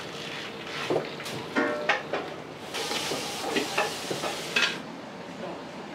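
Food sizzling in a wok on a gas range, with a metal ladle clanking and scraping against the wok; a few of the clanks ring briefly. The sizzle swells loudly for about two seconds midway, with more clanks through it.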